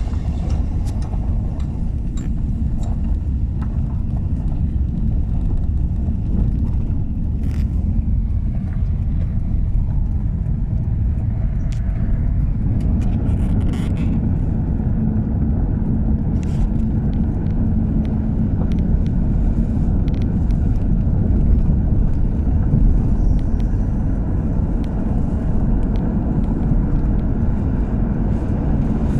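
A car driving, heard from inside: a steady low rumble of engine and tyres on the road, with a few faint knocks.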